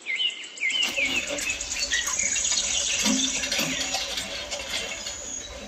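Small birds chirping in short repeated notes, most densely in the first second, over a steady outdoor hiss with scattered clicks and taps.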